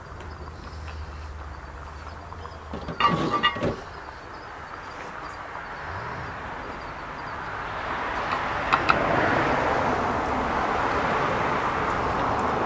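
A heavy cast-iron camp oven lid set down on a metal stove table, clanking a few times about three seconds in. After that a broad rushing noise swells and stays up to the end.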